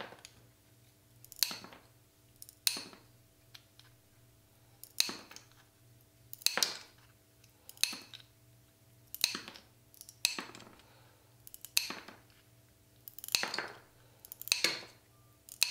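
Mosaic nippers snapping a strip of tile into little squares: a sharp crack about every second and a third, around ten in all.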